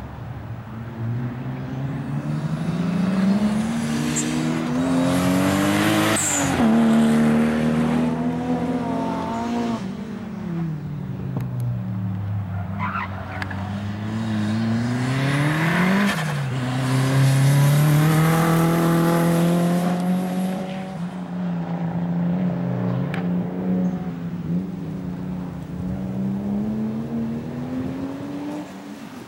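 Cars being driven hard, the engine note climbing under acceleration and dropping suddenly at gear changes, several times over. Tyres squeal at times on the Toyota Supra and Nissan S13 as they lap the circuit.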